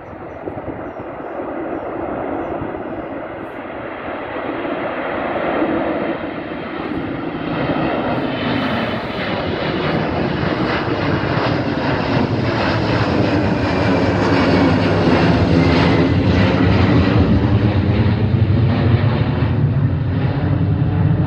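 Boeing 767's twin jet engines at climb power as it climbs out after take-off and passes overhead, growing steadily louder over the first two thirds and staying loud. A faint whistle falls in pitch as it goes over.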